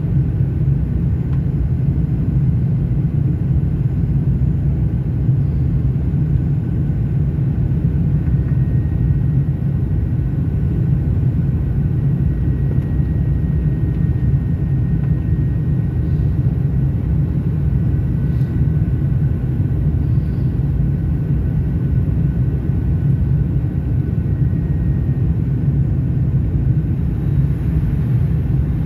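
Steady low rumble of cabin noise inside a Fokker 100 jet airliner on its descent to land, the sound of its rear-mounted Rolls-Royce Tay turbofans and the airflow. A faint high steady whine sits over it through the middle.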